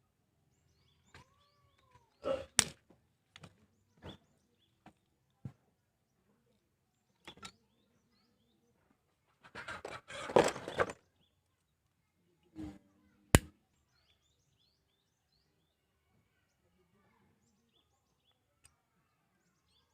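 Small hard plastic parts being handled and worked by hand: scattered sharp clicks and knocks, with a longer scraping rustle about ten seconds in.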